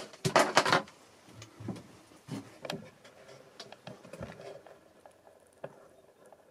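Handling noise as a camera is moved and re-aimed: a quick cluster of loud clicks and knocks in the first second, then scattered faint clicks and rustles.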